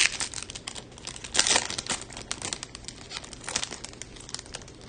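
Foil wrapper of a Topps Chrome baseball card pack crinkling and tearing as it is ripped open by hand, in uneven crackling bursts. The loudest burst comes about a second and a half in.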